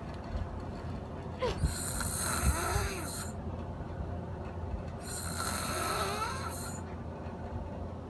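A person snoring in slow, even breaths, two snores about three and a half seconds apart.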